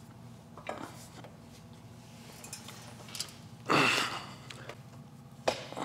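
A man straining to lift a heavy car subframe by hand, with a loud, breathy effort exhale lasting about half a second near the middle and a small knock a little before.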